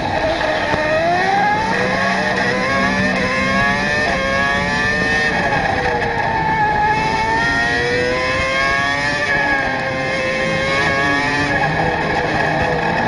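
Formula One car engine sound effect: a high-revving racing engine climbing in pitch and dropping again, over and over, as it runs up and down through the revs.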